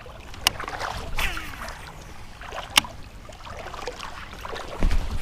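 Splashing river water and handling noise from a baitcasting rod and reel. Two sharp clicks come about half a second and about three seconds in, and a low rumble starts near the end.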